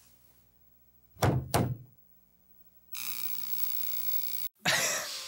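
Gavel banging down twice in quick succession about a second in, in an AI-generated (Veo 3) ad's soundtrack. A steady hiss with a low hum follows and cuts off suddenly.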